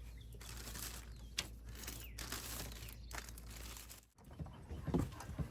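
Rustling and a few sharp clicks from handling hardware and parts. The sound drops out abruptly about four seconds in, then a run of quick irregular clicks begins.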